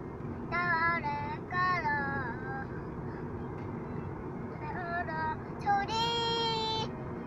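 A young child singing short, wavering phrases, ending on one long held note near the end. The steady low rumble of the car's road noise is heard inside the cabin.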